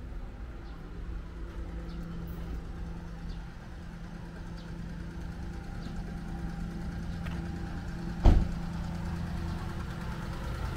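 A parked vehicle's engine idling steadily, with a single sharp bang about eight seconds in.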